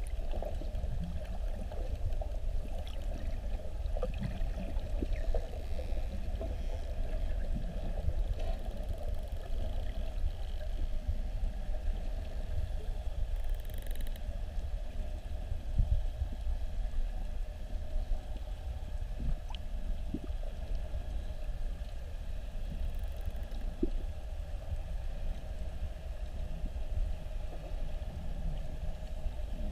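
Underwater ambience from a camera in the sea: a steady low rumble of water moving around the camera, with a few faint scattered clicks.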